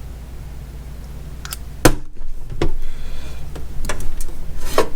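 Large neodymium fishing magnet being handled: a sharp knock about two seconds in as it snaps against metal, followed by a few lighter clicks and knocks.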